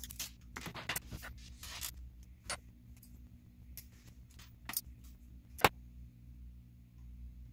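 Scattered clicks and light clinks of small RC crawler suspension parts being handled: pliers on a link rod end, small metal pivot balls and a plastic link being fitted to the chassis. One sharper click comes about three quarters of the way through.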